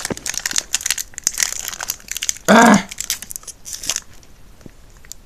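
Foil Pokémon booster-pack wrapper crinkling and tearing as it is opened by hand, growing quieter after about four seconds. A short vocal sound cuts in about two and a half seconds in.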